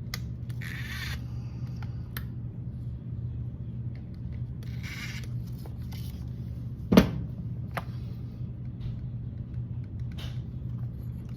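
Small clicks and brief scrapes of hands and tools working on an RC truck's motor mount while the gear mesh is being set, with one sharp click about seven seconds in, over a steady low hum.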